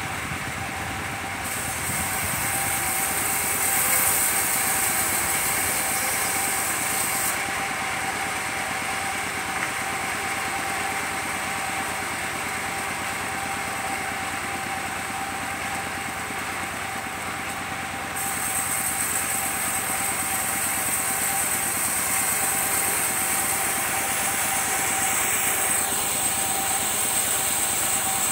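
Engine-driven circular sawmill running steadily with a constant whine as coconut wood is sawn. It gets louder with a high hiss from about two to seven seconds in and again from about eighteen seconds on, while timber is pushed through the blade.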